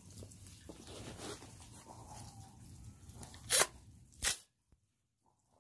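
Two sharp clicks about 0.7 s apart over faint background noise, near the end, after which the sound cuts out to near silence.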